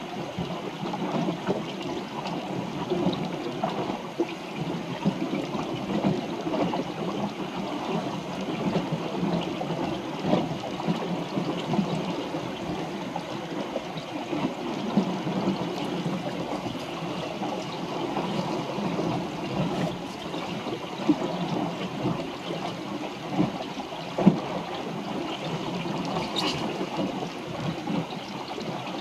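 Water rushing and gurgling steadily along the hull of a small wooden sailboat under way, with a few faint knocks.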